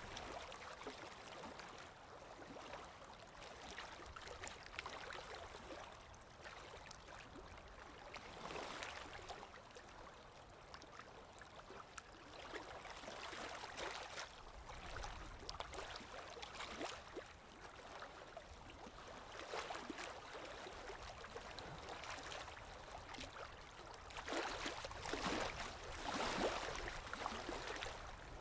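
Small stream of water babbling and trickling steadily, with a louder, splashier stretch for a few seconds near the end.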